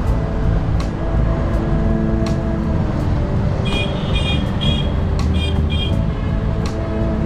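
A heavy vehicle's engine running steadily close by, with a sharp tick about once a second. Roughly four to six seconds in, a string of short high-pitched horn toots sounds in two quick groups.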